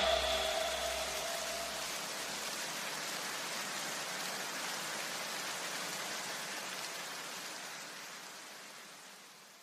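A steady, even hiss with no pitch or rhythm, fading away over the last two seconds. A faint low tail of the preceding music dies out in the first two seconds.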